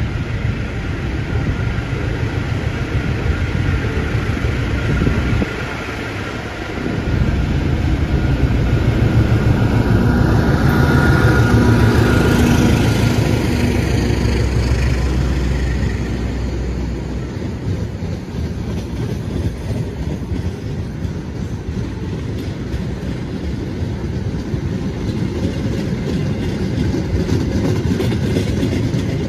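Diesel-hauled passenger train passing close by: the locomotive and leading cars are loudest from about seven to seventeen seconds in. The coaches' wheels then roll steadily along the rails.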